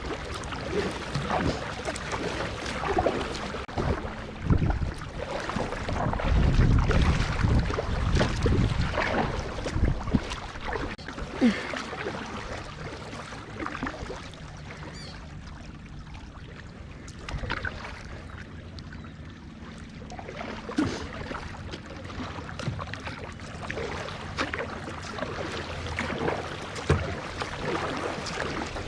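Kayak paddle strokes dipping and splashing in lake water, with gusts of wind rumbling on the microphone for a few seconds early on.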